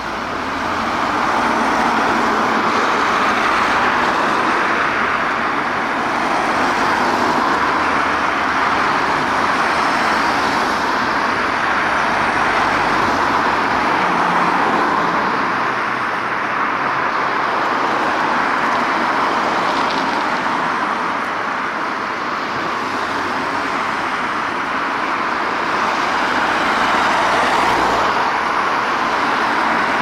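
Road traffic passing on the street: a steady hiss of car tyres and engines that swells and eases as vehicles go by.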